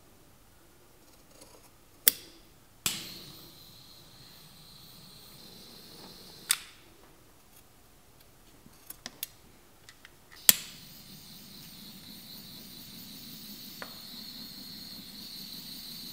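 Several sharp clicks as scissors cut a nylon strap. About ten seconds in, a butane torch lighter clicks on and hisses steadily as its flame is held to the strap's cut end.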